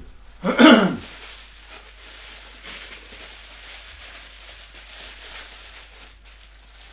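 A short throat-clearing sound about half a second in, then faint steady rustling of packaging as the rod is unwrapped.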